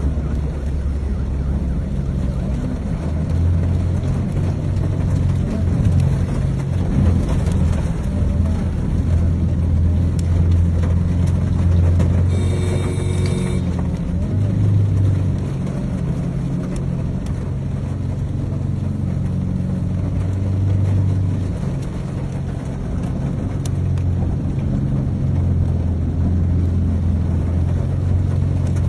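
A vehicle driving slowly through a flooded street, heard from inside the cabin: a steady low engine hum with the wash of floodwater around the vehicle. A short high tone sounds about twelve seconds in.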